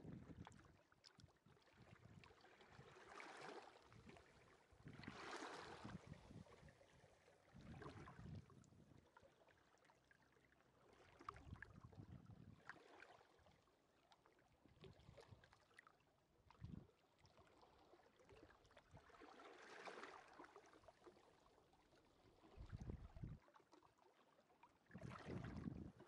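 Faint sea waves washing onto a beach, swelling and fading every few seconds, with short low rumbles of wind on the microphone.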